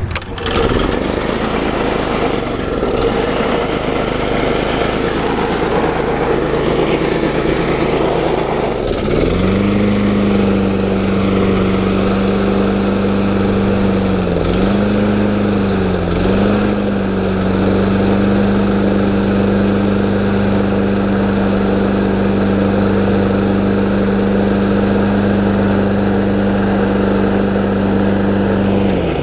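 Single-cylinder Kawasaki FJ180V walk-behind mower engine starting just after the opening and running steadily. About nine seconds in, a strong steady hum joins it and dips briefly twice a few seconds later.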